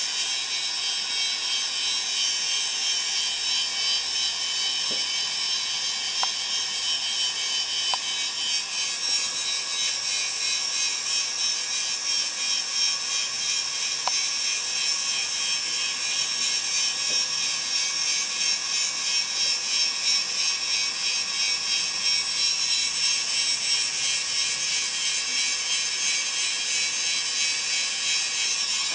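Hot-air rework station blowing a steady hiss of hot air onto a phone logic board to desolder a metal shield, with a few faint ticks of metal tools on the board.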